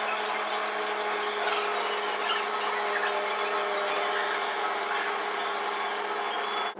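Kinetic drawing machine running: a steady electric motor hum with a mechanical whirr and a few faint squeaks of moving parts.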